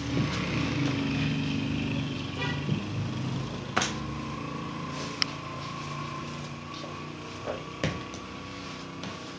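A motor running steadily, with a steady higher whine joining about four seconds in and a few sharp knocks.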